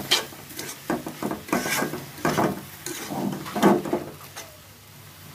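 Metal spatula stirring and scraping shredded fried beef around a karai, in irregular strokes about one or two a second that die down near the end.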